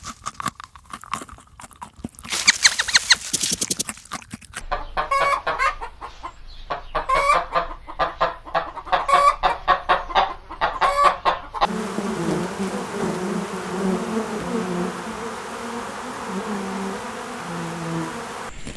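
Chickens clucking in quick repeated calls, with a longer call about two seconds in. For the last several seconds the sound turns into a steadier, denser chatter of a flock.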